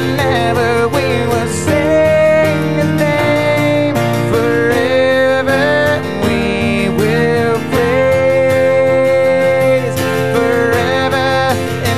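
Acoustic guitar and electric keyboard playing a slow worship song, with a voice holding long notes over them.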